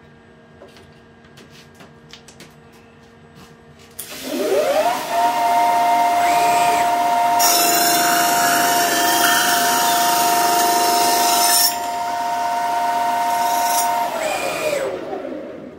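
A few light clicks, then a CNC lathe spindle spins up with a rising whine that settles into a steady two-note whine. An 80 mm, 72-tooth HSS slitting saw at 1500 rpm then cuts through 7075 aluminium for about four seconds with a loud high hiss. After the cut the spindle winds down with a falling whine.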